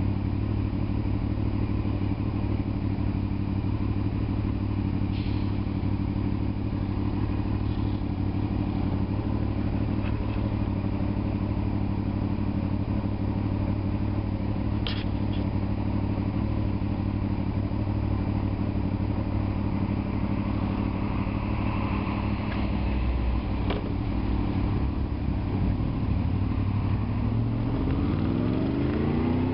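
Honda VFR's V4 engine running steadily at low revs, then rising in pitch near the end as the motorcycle accelerates. A few brief sharp clicks, the clearest about halfway through.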